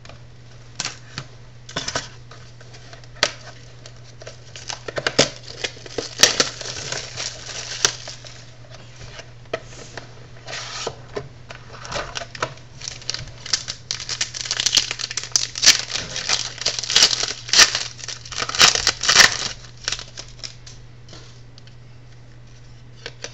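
A sealed box of sports trading cards being opened by hand: irregular bursts of plastic wrap tearing and crinkling, with clicks of cardboard being handled. A steady low electrical hum runs underneath.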